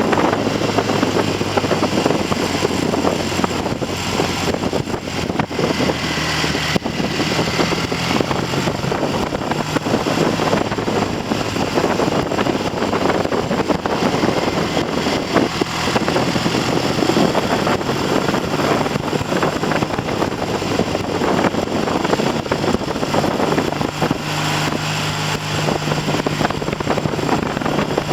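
Heavy wind buffeting on the microphone of a moving motorcycle, with the Triumph TR6's 650 cc parallel-twin engine running underneath at a steady mid-range. Near the end the wind eases and the engine note comes through more clearly.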